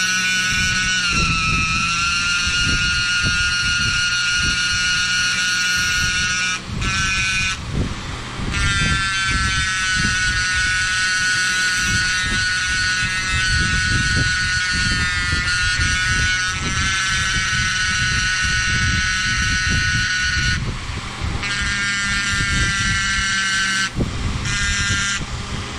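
A Dremel rotary tool on a flexible shaft runs at slow speed with a steady high whine as its small round cutting bit jigs marks into a bone knife handle. The whine breaks off briefly a few times. A shop fan's low hum and rumble run underneath.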